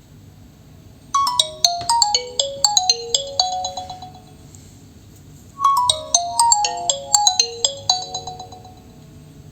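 Nokia 3.4 smartphone ringing with its default incoming-call ringtone: a quick melody of bright, bell-like notes stepping downward, played twice, the second phrase starting about halfway through.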